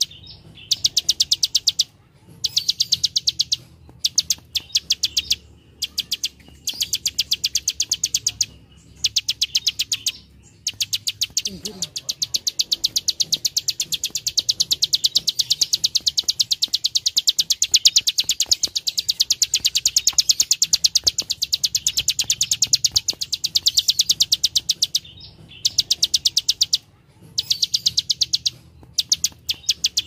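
Plain prinia (prenjak sawah) giving its dry 'klik-klik' clicking call: fast, even trains of high clicks lasting one to a few seconds, separated by short pauses. About twelve seconds in, a single long train starts and runs unbroken for over ten seconds.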